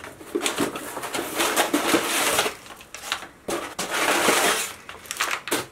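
Crumpled brown kraft packing paper crinkling and rustling as it is pulled out of a cardboard box. The sound comes in irregular handfuls, with a short lull about three seconds in.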